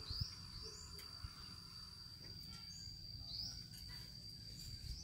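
Faint insect sound: a steady high-pitched whine with short rising chirps a few times.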